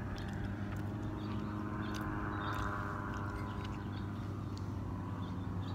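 Steady mechanical hum with a swell that rises and fades in the middle, like a vehicle going by, over faint clicks of chewing.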